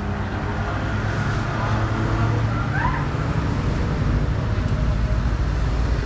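Road traffic and engines running, a steady low rumble. A short rising squeak cuts through about three seconds in.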